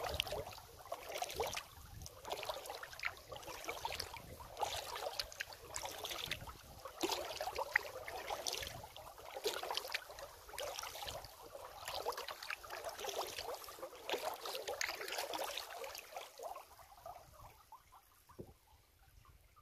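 Kayak paddle strokes in calm water: splashing and dripping from the blades, a stroke about every second and a half, fading out near the end as the paddling stops.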